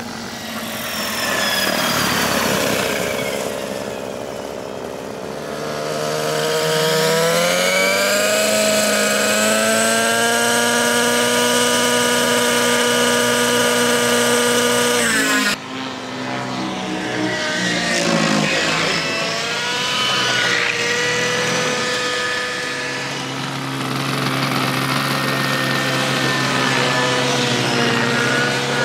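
Radio-controlled model helicopter's small engine and rotor. The pitch rises as it spools up, then holds a steady whine. After a sudden break about halfway through, the pitch wavers up and down and settles steady again as the helicopter flies.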